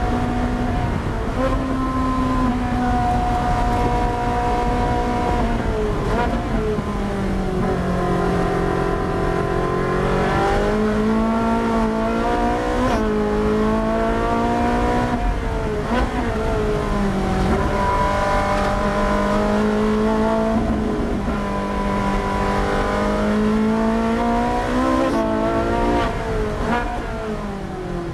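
Ferrari Challenge race car's V8 heard from inside the cockpit, pulling and easing off as the car brakes and accelerates through corners. The pitch falls as it slows, with sudden jumps up at downshifts several times.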